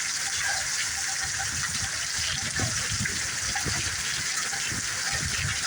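Heavy thunderstorm rain pouring down in a steady, loud hiss, driven by strong wind gusts. From about two seconds in, irregular low thumps sound under the rain.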